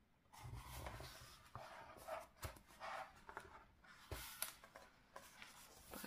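Paper rustling as a hand slides over the pages of a large hardcover art book and turns a page, with a few soft taps and low thumps of the book.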